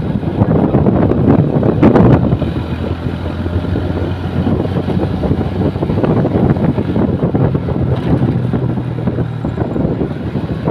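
Road traffic passing close by: engine rumble and tyre noise from large vehicles, with wind buffeting the microphone. It surges louder about two seconds in, and a steady low engine hum comes in near the end.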